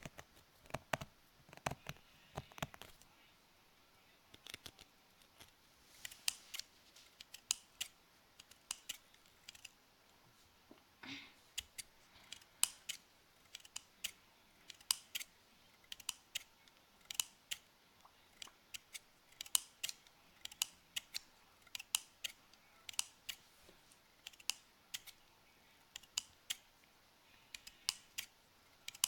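Scissors snipping close to the microphone: a string of short, sharp snips, roughly one to two a second.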